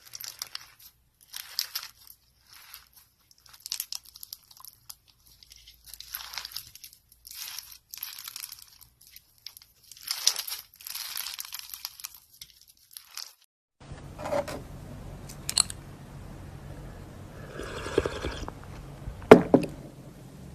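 Slime being pressed and squeezed, crackling and popping in short bursts. About two thirds of the way in the background turns to a steady hum, with a few clicks and one sharp knock near the end.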